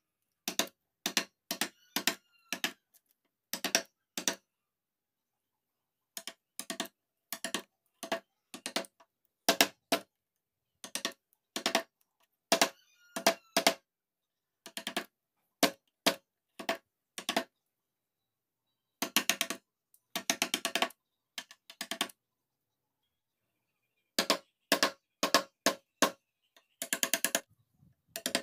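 Carving chisel striking into a mahogany panel: sharp taps in short runs of a few strikes, with pauses between runs.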